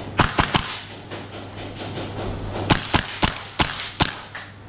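Airsoft guns firing in single shots: three quick cracks just after the start, then five more spaced out over the second half.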